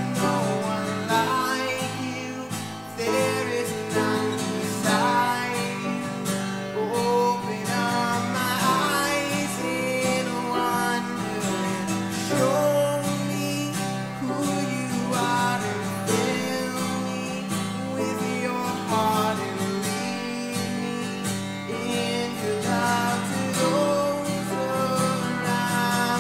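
A worship song: a man singing to a strummed acoustic guitar.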